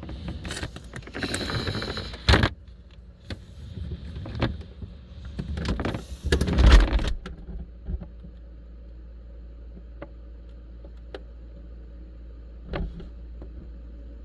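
LG French-door refrigerator's freezer drawer being handled and slid, with rumbling and a sharp knock about two seconds in and a louder stretch a few seconds later. After that the fridge runs with a steady low hum and a few faint clicks.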